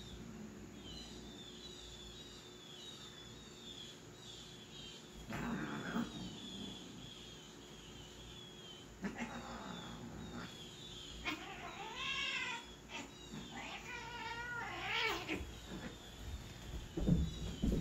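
A domestic cat meowing in two drawn-out, wavering calls, about two-thirds of the way in and again shortly after, over faint repeated high chirps. A few soft thumps near the end as the cats move on the carpeted cat tree.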